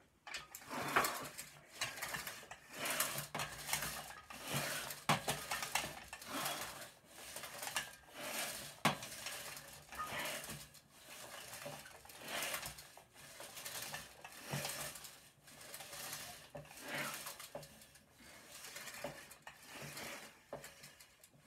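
Barbell weight plates clinking and rattling on the bar as it is lifted and lowered in repeated reps, with surges about every two seconds.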